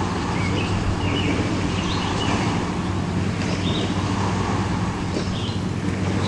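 Steady low hum with hiss, with a few faint short high squeaks scattered through it.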